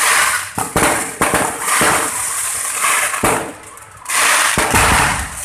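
Aerial fireworks bursting: about five sharp bangs roughly half a second to a second and a half apart, over a steady hissing crackle from the glittering stars, with a short lull a little past the middle.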